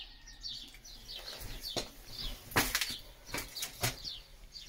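Rustling and scuffling with several sharp knocks, from puppies rooting through raw meat and paper in a cardboard box. Quick, high chirps repeat throughout.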